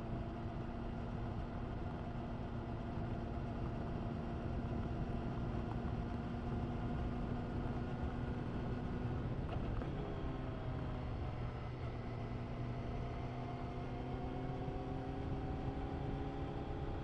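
Honda CBR1000RR-R SP Fireblade's inline-four engine running through an Akrapovic exhaust at steady revs. The revs dip briefly about ten seconds in, then slowly climb again.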